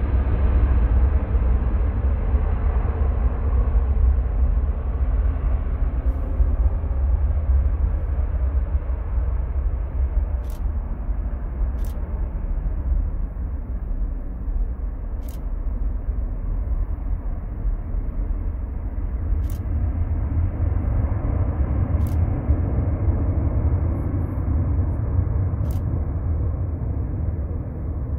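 Large jet airliner's engines rumbling on the runway: a deep, loud, steady roar that eases a little midway and swells again later. Several faint sharp clicks come through on top from about ten seconds in.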